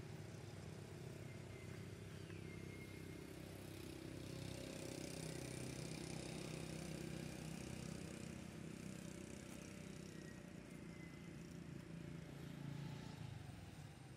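Faint, steady outdoor background noise with a low rumble, like distant traffic, and a couple of faint high chirps.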